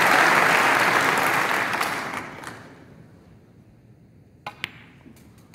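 Audience applause fading out over about three seconds. After a quiet spell, about four and a half seconds in, two sharp clicks come close together: a snooker cue striking the cue ball, then the cue ball hitting a red.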